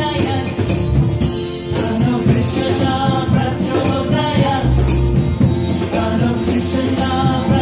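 Live kirtan music: women's voices singing a devotional chant over bowed cello, sitar and bass, with hand percussion such as a shaker or tambourine keeping a steady rhythm.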